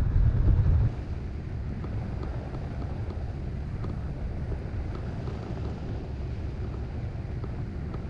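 Wind buffeting the microphone of a camera mounted on a hang glider in flight: a loud low rumble that drops to a quieter, steady rush about a second in.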